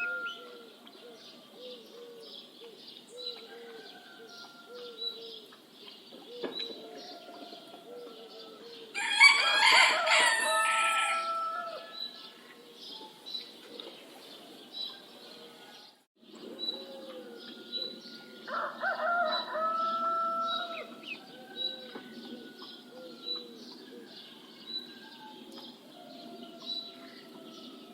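A rooster crowing twice, each crow about two seconds long, over a steady morning chorus of smaller birds chirping and calling. The sound cuts out for a moment between the two crows.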